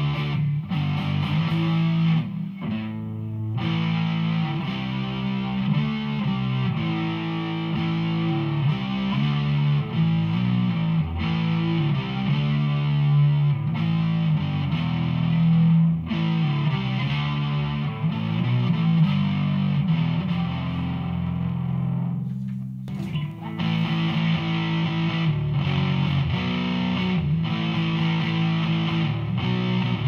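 Electric guitar played through a Behringer V-Amp Pro amp-modelling processor on an overdrive setting: distorted chords and riffs, with brief breaks about two to three seconds in and again about three-quarters of the way through.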